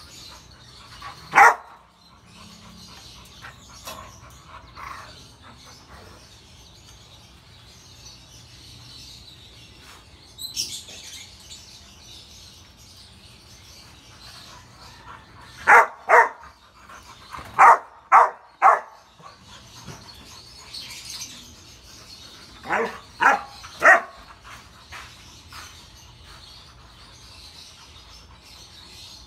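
Rottweilers barking during play in short, sharp barks: one bark about a second in, then a quick pair, a run of three, and after a short pause three more.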